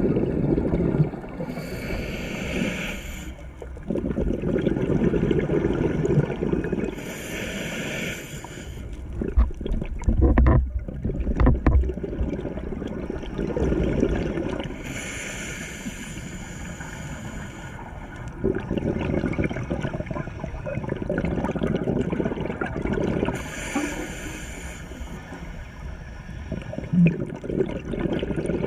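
Scuba regulator breathing heard underwater. Four hissing inhalations come about every seven to eight seconds, and each is followed by a long gurgling rush of exhaled bubbles, with a few dull low knocks about ten seconds in.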